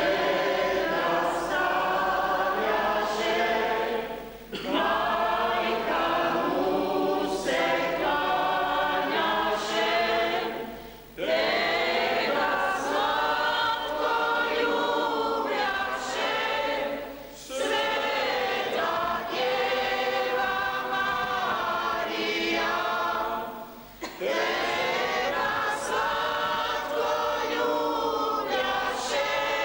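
A church congregation singing a hymn together in long sustained phrases, with short breathing breaks about every six seconds.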